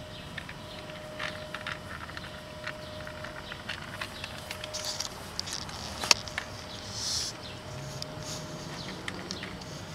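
Cat crunching dry kibble from a plastic container: scattered small crunches and clicks, with one sharp click about six seconds in.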